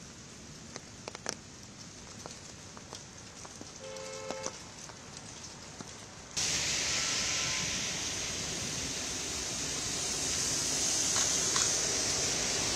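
Steady hiss of rain falling on a wet road, with scattered small drips and a brief tone about four seconds in. About six seconds in the sound cuts abruptly to a much louder, hissing downpour.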